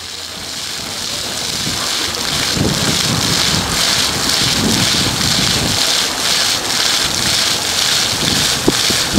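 Water jets of a ground-level plaza fountain spraying and splashing onto wet paving: a steady hiss that fades in over the first couple of seconds. Irregular low rumbles of wind buffet the microphone.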